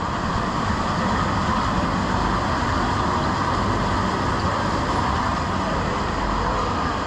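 Steady ambient noise of a market hall, a constant even rush with a traffic-like rumble and no distinct events standing out.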